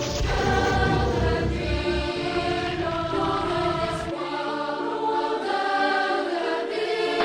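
Choral music: voices singing held chords that change every second or so, with a low pulsing rumble under the first two seconds.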